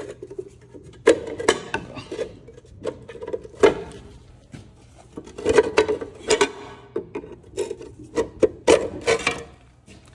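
Screwdriver working at a screw in the old metal cover of a horse drinker: a run of irregular metal-on-metal scrapes and clicks.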